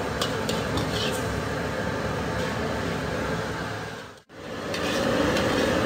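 Steady roar of a commercial kitchen's extractor hood and wok burners, with a few light clinks of utensils in the first second or so. The sound drops out for a moment about four seconds in, then returns a little louder.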